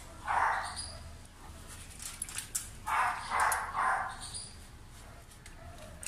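A dog barking: one bark near the start, then three barks in quick succession about three seconds in.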